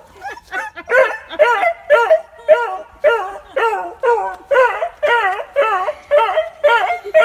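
Beagle howling in excited greeting of its owner: a fast run of short yelping howls, each rising and falling in pitch, about two a second.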